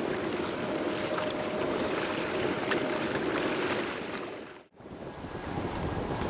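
Steady rushing jet noise of a heavy airliner climbing away after takeoff, mixed with wind buffeting the microphone; the sound drops out abruptly for a moment about four and a half seconds in and then returns.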